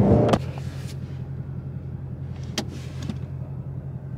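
Ford Mustang GT350R's 5.2-litre flat-plane-crank V8 running steadily, heard as a low hum from inside the cabin. A louder sound cuts off abruptly right at the start, and there is a single sharp click about two and a half seconds in.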